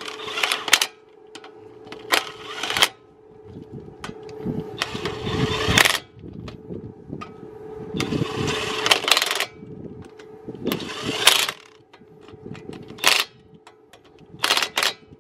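Cordless impact wrench hammering on a car wheel's lug nuts in about seven short bursts, some under a second and some over a second long, over a steady low hum.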